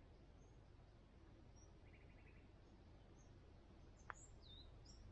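Near silence in bushland: faint, high bird chirps scattered through, with a short rapid trill about two seconds in. A single sharp click comes just after four seconds.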